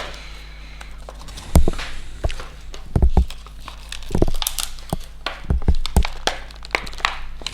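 Retail packaging of a CD/DVD repair kit being pulled and torn open by hand: crinkling and tearing with several sharp knocks and thumps as it is handled.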